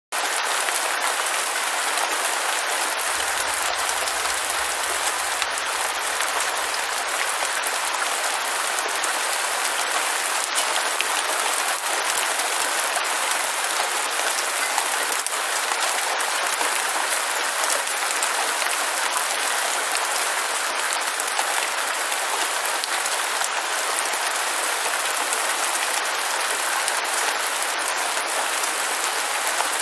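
Steady rain falling, an even, unbroken hiss with fine scattered patter.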